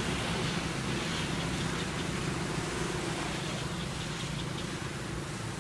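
Steady low outdoor rumble, with faint, quick, high insect ticking coming in after about four seconds.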